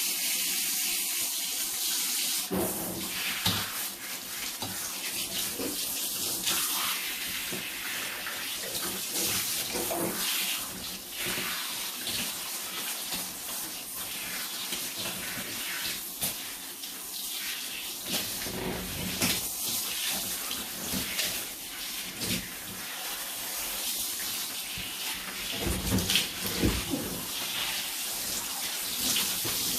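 Running water, a continuous splashing flow.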